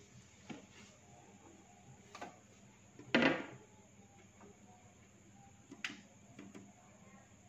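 Quiet room hiss with a few small clicks and knocks from a hand working at a digital mixing console, the loudest a short knock about three seconds in.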